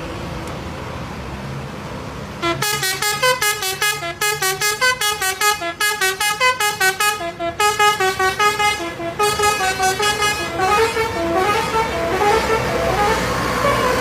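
Bus telolet horn, a multi-note musical air horn, playing a fast melody of short notes stepping up and down over a low bus engine hum. It starts about two and a half seconds in, after a few seconds of engine hum alone.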